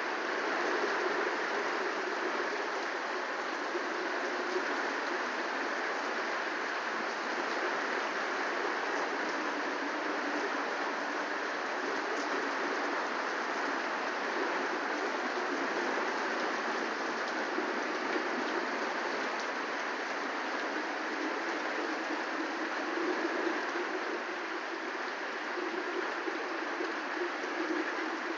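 Heavy cloudburst downpour: a steady, dense hiss of rain pouring onto gravel, paving and grass.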